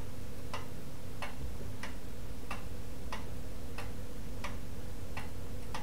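A utensil clicking against a mixing bowl while tofu and egg are stirred together, about three even strokes every two seconds.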